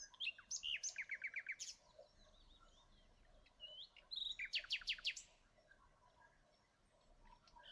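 Faint birdsong: two quick phrases of repeated falling chirps, one just after the start and one around the middle.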